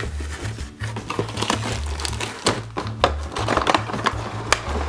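Plastic packaging crinkling and crackling with short clicks as toy pieces are unwrapped and handled, over background music with a repeating bass line.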